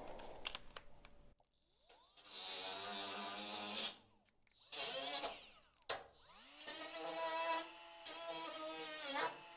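Cordless rotary tool with a small abrasive cut-off wheel notching rusty sheet steel: a high motor whine with a grinding hiss. It runs in three goes: about two seconds, then a brief burst, then a longer cut near the end. The pitch winds down each time the trigger is released and rises as it spins back up.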